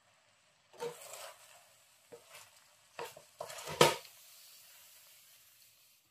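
Wooden spatula stirring and scraping rice in a metal pan, in several short strokes, the loudest a little under four seconds in. A faint steady hiss follows from the hot pan.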